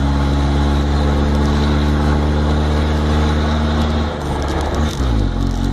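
Chevrolet D10 pickup's Perkins four-cylinder diesel engine running under way, heard from inside the cab. About four seconds in the revs drop and then settle at a lower, steady pitch.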